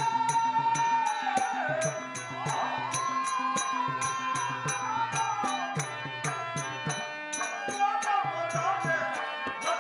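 Live folk-theatre accompaniment: a two-headed hand drum beating a quick pattern, small cymbals clicking sharply in time, and a held melody line that slides up and down in pitch over them.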